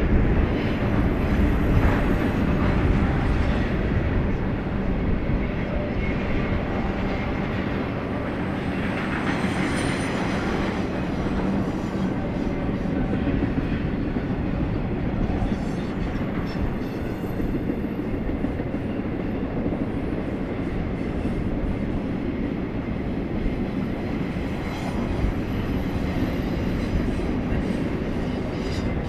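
Intermodal freight train cars rolling past on the rails, a steady rumble of wheels on track with some clickety-clack.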